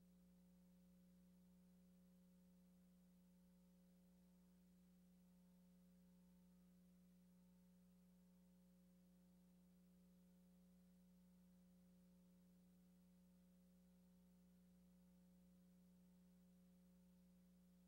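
Near silence: only a faint, steady electrical hum, a low pitched drone that never changes.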